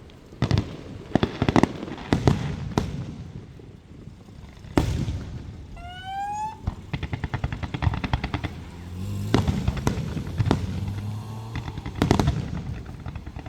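Aerial fireworks going off, with repeated sharp bangs of shells bursting. About six seconds in a whistling firework rises in pitch, followed by a quick run of crackling.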